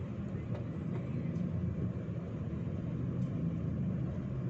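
Steady low rumble of road and engine noise from a moving car, heard from inside the cabin.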